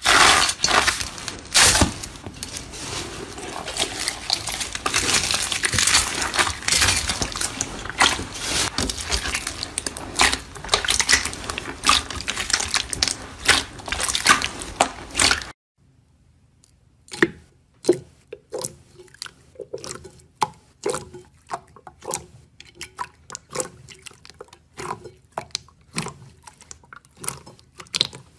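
Hands pressing and kneading foam-bead slime, a dense run of crackling and crunching as the beads pop and grind. It cuts off about 15 seconds in; then glossy silver slime is squeezed, giving separate wet squishes and air-pocket pops, one or two a second.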